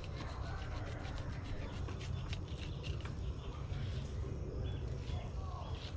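Knife crunching and scraping through a tilefish as it is filleted: quick rough clicks, mostly in the first half. Birds chirp briefly near the end over a low steady rumble.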